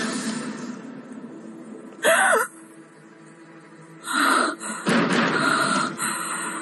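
Background music fading out, then a person's short gasping cry about two seconds in, its pitch rising and falling, followed by further breathy bursts of voice near the end.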